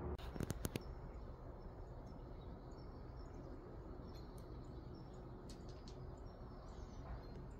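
Outdoor rural ambience: a steady low background hum with faint, short bird chirps scattered throughout. A quick run of sharp clicks comes just after the start.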